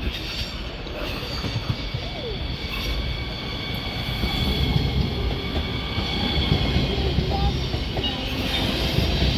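Siemens Desiro HC double-deck electric multiple unit of the Rhein-Ruhr-Express running past close by, its wheels and running gear rumbling with a steady high-pitched whine above. It grows louder about four seconds in as the cars draw level.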